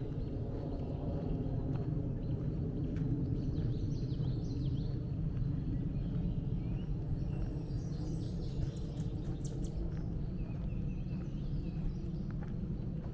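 Songbirds chirping and calling in woodland, in scattered bursts that are busiest a few seconds in and again after about eight seconds, over a steady low background rumble.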